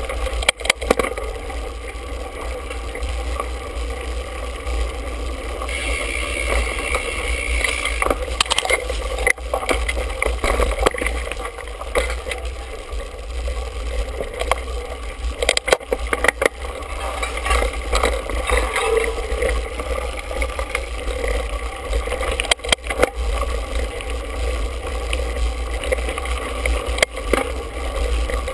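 Mountain bike riding over a dirt singletrack, heard from a handlebar-mounted camera: a steady rumble of tyres and frame over the ground, with frequent sharp knocks and rattles from bumps.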